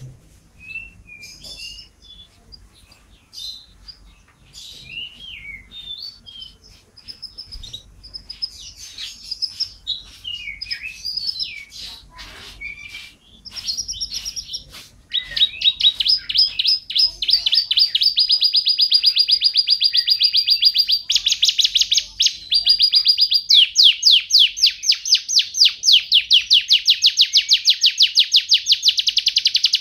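Domestic canary singing: scattered chirps and gliding whistles, then about halfway through a loud, fast rolling trill of rapidly repeated notes that shifts pitch a couple of times.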